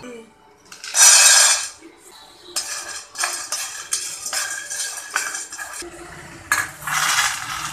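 Whole dried chickpeas poured into an empty nonstick frying pan with a loud rattling rush about a second in, then dry-roasted and stirred with a wooden spatula, the peas clattering against the pan in quick repeated strokes. Another loud rattling rush comes near the end.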